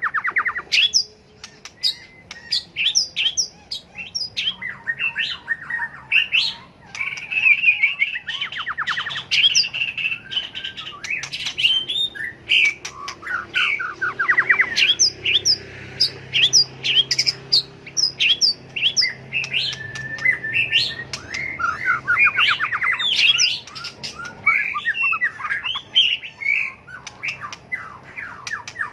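White-rumped shama singing in full competition song: a loud, varied run of whistled phrases, sharp notes and rapid trills.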